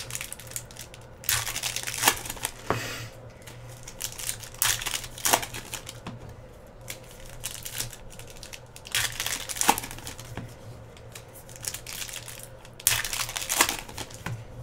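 Foil wrappers of trading card packs crinkling as they are opened and the cards handled, in irregular bursts of rustling, over a low steady hum.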